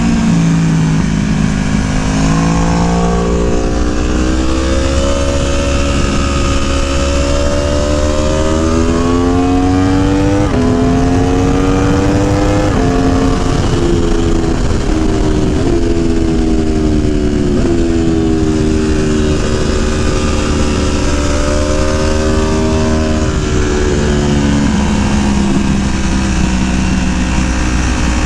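Aprilia Tuono 1100's V4 engine, heard onboard at track speed: its pitch climbs under hard acceleration and steps down at each gear change, then falls and picks up again through the corners. Steady wind rumble on the microphone runs under it.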